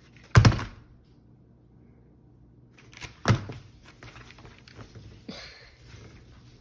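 A Smith & Wesson M&P Shield pistol being handled during a failed attempt to take it apart: two loud thunks about three seconds apart, followed by lighter clicks and rattling.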